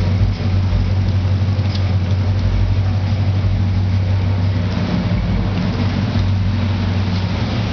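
A 1972 donk convertible's engine running steadily at low speed as the car rolls slowly, a deep, even drone.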